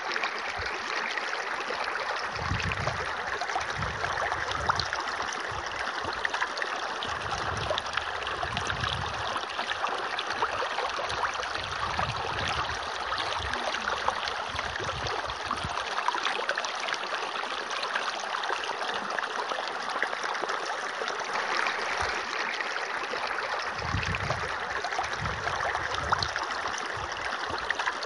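Steady flowing, trickling water, with soft low swells now and then.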